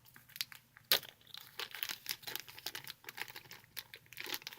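Crinkling and rustling handling noise, a string of small close clicks and crackles, with one sharp click just under a second in.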